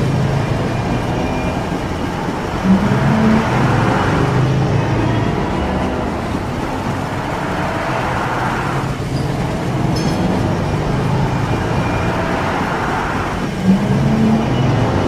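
Bulldozer's diesel engine running steadily, with a short louder burst about three seconds in and again near the end.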